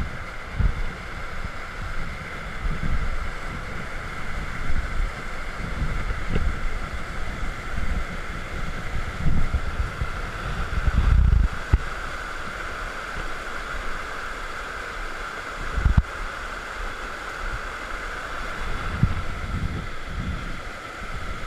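Creek water rushing steadily, with irregular low rumbles of wind on the microphone, strongest about halfway through.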